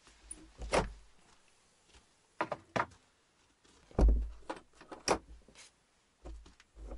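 Irregular sharp knocks and clicks from a wooden door insulated with foam and banner fabric and its metal latch being worked, with one heavy thump about four seconds in as the door is shut.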